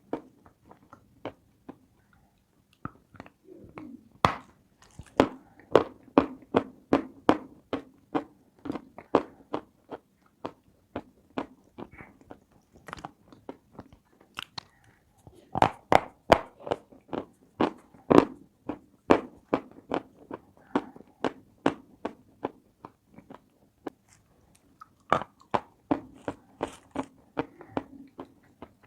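Close-miked chewing of a dry, crunchy food: a steady run of sharp crunches, often about two a second, easing off twice into softer chewing before picking up again.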